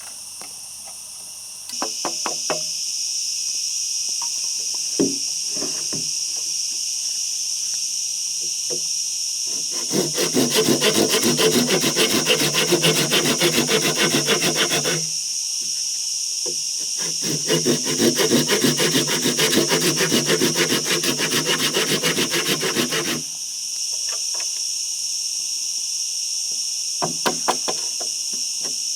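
A saw cutting through wood in two long spells of quick, even back-and-forth strokes, with a few separate knocks on wood before the first spell.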